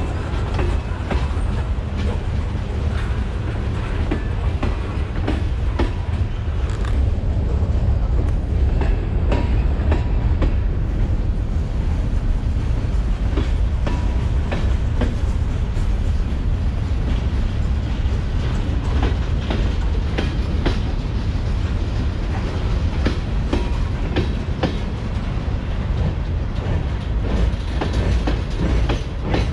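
Freight train rolling past: a steady low rumble with irregular clicks of the wheels over rail joints.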